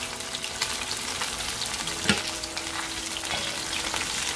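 Floured chicken breast pieces sizzling and crackling as they fry in hot oil in a pot, moved apart with a wooden spatula. A single sharp knock comes about two seconds in.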